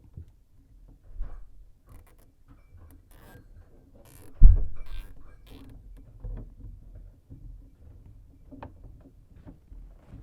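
Scattered light clicks and handling noises of tools and parts being moved, with one loud thump about four and a half seconds in.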